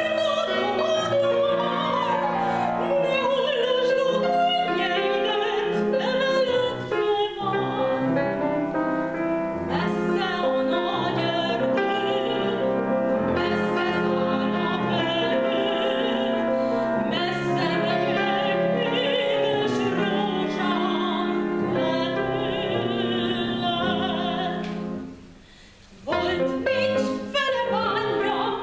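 A woman singing in a classical style with a wavering vibrato, accompanied by a grand piano. Voice and piano break off briefly near the end, then start again.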